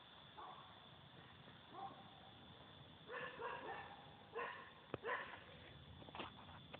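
Faint short animal calls over a low steady hiss: a quick cluster about three seconds in, then a couple more a second or two later, with one sharp click in between.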